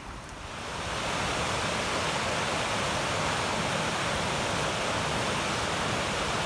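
River in flood pouring over a weir: a steady rush of falling, churning water that swells up over the first second and then holds level.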